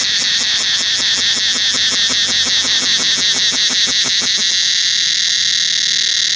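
Cicada chorus calling loudly in a tropical forest. It pulses rapidly, then settles into a steady, even drone about four seconds in.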